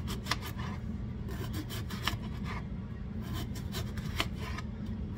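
Small paring knife slicing through a raw yellow onion: a scratchy rasp of the blade through the layers, with irregular crisp clicks as cuts go through, over a steady low hum.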